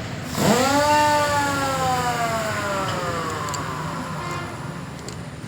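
A part of the dismantled truck gearbox spinning freely. A whine jumps up in pitch about half a second in, then slowly falls and fades over about four seconds as the part coasts down.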